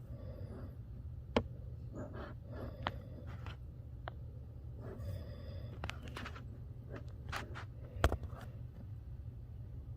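Scattered clicks, scrapes and knocks of a removed F-150 AC blower motor and its fan cage being handled and checked for debris, with a sharp knock about a second in and a louder one near eight seconds, over a steady low rumble.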